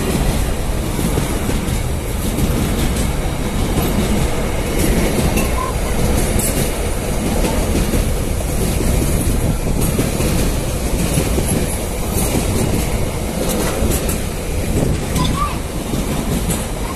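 Loaded container wagons of a freight train rolling past close by: a loud, steady rumble with wheels clicking over the rail joints.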